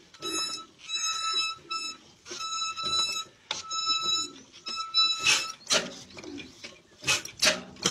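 A steady high-pitched beeping tone sounding in repeated bursts of about half a second to a second, like an alarm, followed from about five seconds in by a few short, sharp noisy bursts.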